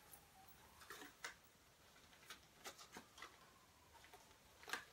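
Near silence with a few faint, scattered light clicks and rustles from a small cardboard jewelry box and tissue paper being handled.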